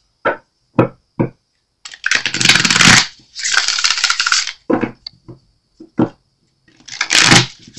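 A deck of tarot cards being handled and shuffled. A few light taps come first, then two long rustling bursts of the cards sliding against each other, and a shorter burst near the end.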